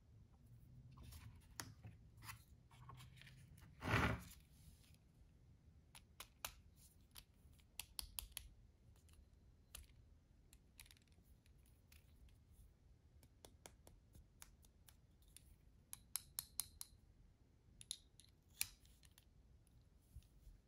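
Small clicks and taps of a precision screwdriver handle and its extension shaft being handled and fitted together, with one louder knock about four seconds in and quick runs of clicks later.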